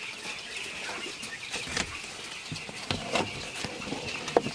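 A flock of young broiler chickens peeping steadily, with scattered clicks and knocks over it.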